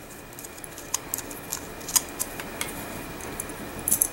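Light, irregular metal clicks and scrapes of a flathead screwdriver working against the steel bolt of a .22 bolt-action rifle as a small part is pried off, with a quick flurry of clicks near the end.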